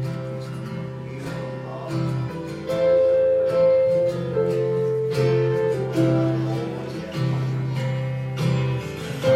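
Instrumental music led by strummed acoustic guitar, with held bass notes and chords changing every second or so.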